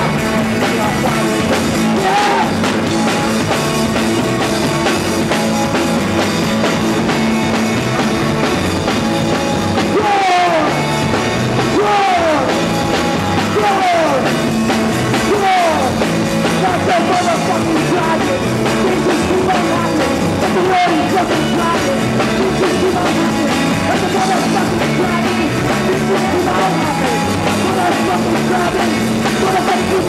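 Live rock band playing: electric guitars, bass and a drum kit, with a singer. From about ten seconds in, a run of falling swoops in pitch repeats about once a second for several seconds.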